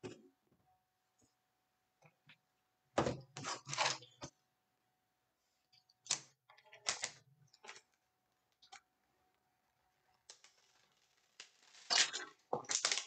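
Handling noise: bunches of short clicks and taps as a cardboard trading-card hanger box and stacks of cards are picked up, set down and turned over on a tabletop. The noise comes three times: about three seconds in, about six seconds in, and loudest near the end.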